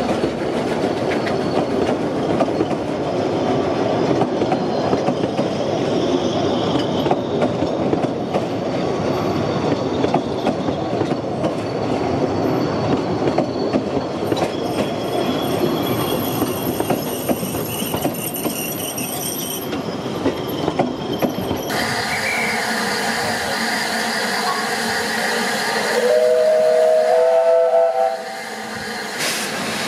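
Narrow-gauge passenger carriages rolling past, their wheels clicking steadily over the rail joints. After a cut, the Double Fairlie steam locomotive sounds its whistle for about two seconds near the end as it pulls away with its train.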